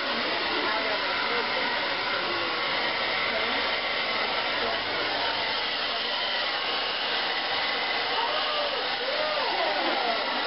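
Hand-held blow dryer running steadily, its air stream aimed at hair being worked over a round brush.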